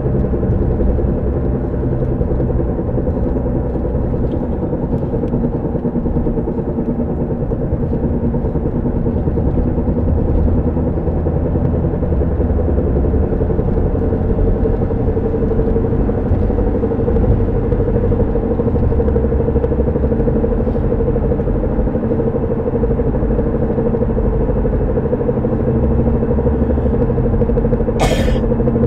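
Car driving with a steady droning hum over the road rumble, coming from the driver-side front tire or drivetrain; the owner suspects either a bad tire or a drivetrain fault. Two short bursts of hiss near the end.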